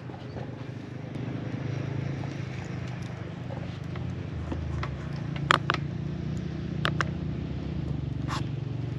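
Motorcycle engines running with a steady low rumble, broken by three short sharp knocks in the second half.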